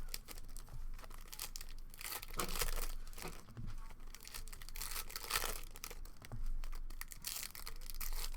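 Foil trading-card pack wrappers being torn open and crinkled by hand, in irregular repeated rustles.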